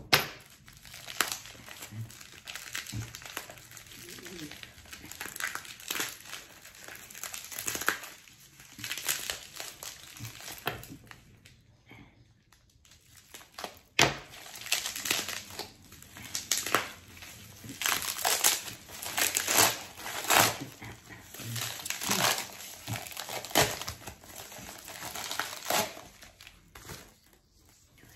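Plastic bubble wrap crinkling and rustling in irregular bursts as a bottle is unwrapped by hand. There is a brief lull about halfway, ending in a sharp click.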